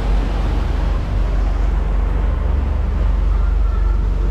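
Fishing charter boat under way at speed: a steady, loud low engine rumble, with rushing water from the wake.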